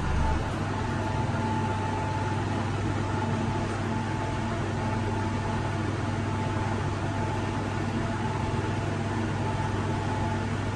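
Schindler 3000 AP traction elevator car travelling down, heard from inside the car: a steady hum and rushing noise with a faint, constant high tone. There is a short low bump right at the start.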